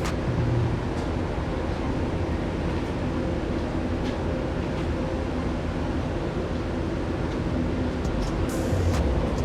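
Ducati Multistrada 950's twin-cylinder engine idling steadily, running on a Power Commander V during a function check.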